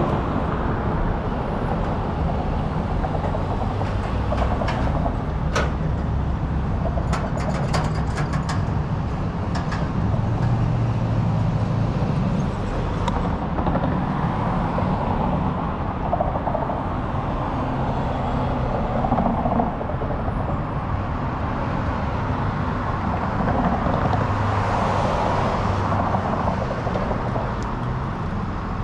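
Steady city-street traffic noise: a continuous low rumble and hiss from passing cars. A short run of sharp clicks comes between about five and nine seconds in.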